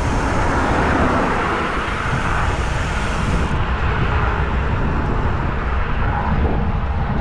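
Wind rushing and buffeting over the microphone of a camera moving along with a road bicycle at speed, a steady, loud rumble. The hiss on top thins out about three and a half seconds in.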